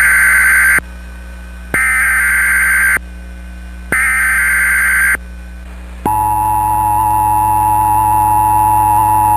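Emergency Alert System header: three one-second bursts of buzzing SAME data tones with short pauses between them. About six seconds in, the steady two-tone EAS attention signal begins, announcing the severe thunderstorm warning that follows.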